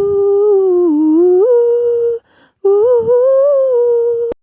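A person humming a slow tune close to the microphone: held notes that glide up between them, in two phrases with a short breath about two seconds in, cut off abruptly near the end.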